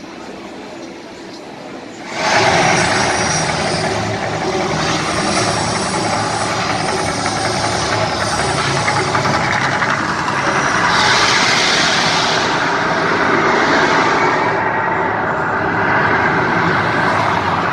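Mirage volcano eruption show: fire and sound effects make a loud, steady rush of noise that starts suddenly about two seconds in and cuts off abruptly at the end.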